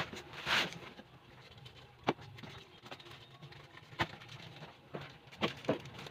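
Cardboard boxes and packaged grocery goods being handled: a short rustle of cardboard and packaging, then a few sharp taps and knocks as items are moved and set down.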